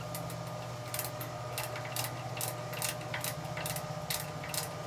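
Light, fairly regular clicking, about three clicks a second, over a steady low electrical hum.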